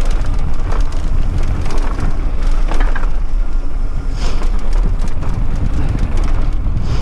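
Wind buffeting the microphone of a mountain biker's camera during the ride, a steady low roar, with a few short clicks and rattles from the bike on rough, rocky trail.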